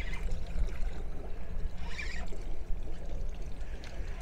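Water splashing and sloshing beside the boat as a hooked saithe is played at the surface, over a steady low rumble.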